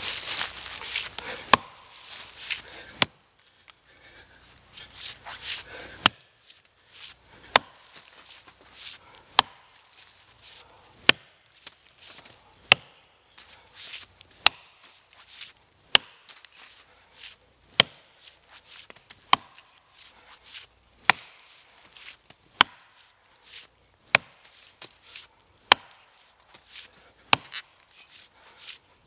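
Axe chopping into the exposed roots at the base of an oak tree, a sharp knock at each stroke, about one stroke every second and a half, with a short pause about three seconds in.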